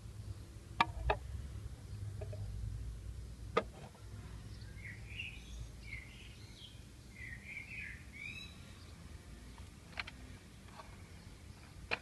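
Sharp plastic clicks and taps from handling a Bruder toy tractor: two about a second in, another near the middle of the first half, and more near the end. A bird chirps a short run of notes in between, over a low steady outdoor rumble.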